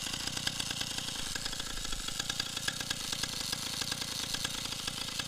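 Two-stroke chainsaw engine fitted to a homemade moped, running steadily with a rapid, even firing rattle.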